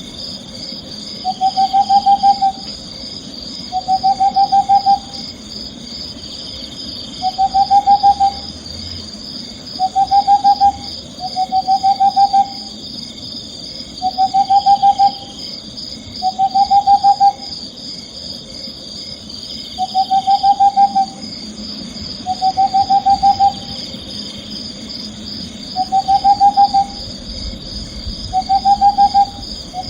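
Owl calling in a repeated, rapidly pulsed trill: about a dozen short, even-pitched trills, each about a second long and two to three seconds apart, over a steady high hiss.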